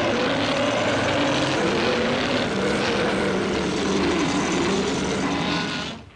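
Film sound effect of an aircraft engine: a loud, steady drone with a slowly wavering pitch, fading out and stopping near the end.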